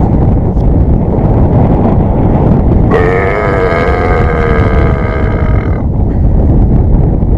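Wind buffeting the microphone throughout. About three seconds in, a single drawn-out, pitched call wavers in pitch for roughly three seconds and then stops.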